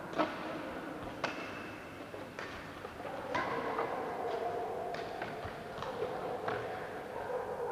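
Badminton rackets striking a shuttlecock in a doubles rally: sharp, crisp hits at uneven spacing, roughly one every half second to a second, over a faint wavering tone.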